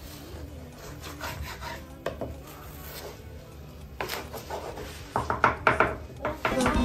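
A wooden spoon scraping and stirring scrambled eggs in a non-stick frying pan, with repeated scraping strokes that come quicker and louder in the second half.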